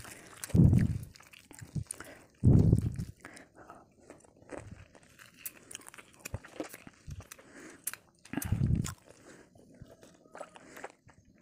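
Close-miked fingers squeezing a lemon slice and mixing rice on a metal plate: soft squishing with many small ticks and crackles, and three louder, deeper thuds.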